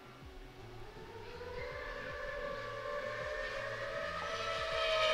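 A 7-inch FPV quadcopter's T-Motor F90 motors and Gemfan 7-inch propellers whining in a straight dive. The tone starts faint and rises steadily in pitch and loudness, and is loudest near the end.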